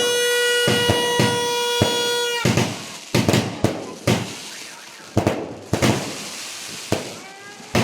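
A multi-shot fireworks cake (Dragon Fireworks' 128-shot 'Knights of the Templar') firing about a dozen loud bangs at uneven intervals. A steady horn-like tone sounds over the first two and a half seconds.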